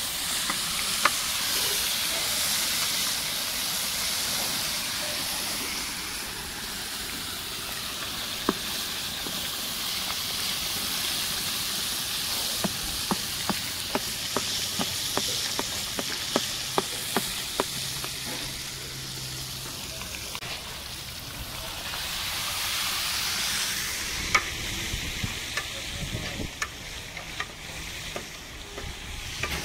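Whole lamb deep-frying in a large pot of hot oil: a steady sizzle. A metal ladle ticks and scrapes against the pot as the lamb is turned, with a quick run of sharp ticks in the middle and more near the end.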